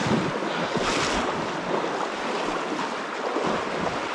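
Fast river current rushing and splashing close around wading legs, with louder surges near the start and about a second in. The current is running very strong.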